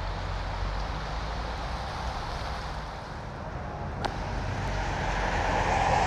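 Street traffic on a wet road: a low, steady engine rumble, with the hiss of car tyres on the wet asphalt swelling louder near the end.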